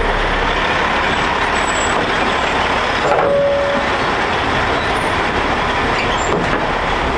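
Heavy military truck's diesel engine running, a steady noisy rumble, with a short squeak about three seconds in.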